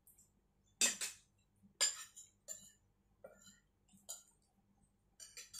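Metal spoons and a fork clinking and scraping against ceramic plates and a soup bowl during a meal: a series of separate sharp clinks, the loudest about one and two seconds in, and a quick cluster near the end.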